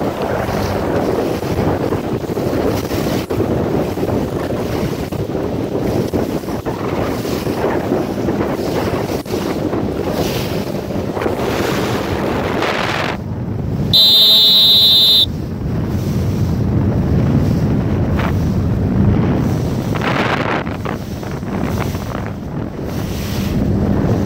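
Strong wind buffeting the microphone over the rush and slap of choppy waves. About fourteen seconds in, a loud steady tone cuts in abruptly and stops just over a second later.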